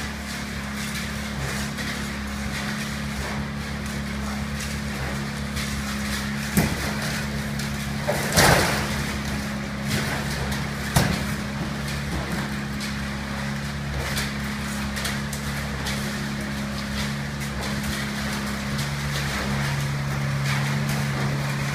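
Steady engine hum of a concrete pump running during a slab pour, with a few sharp knocks; the hum grows a little louder near the end.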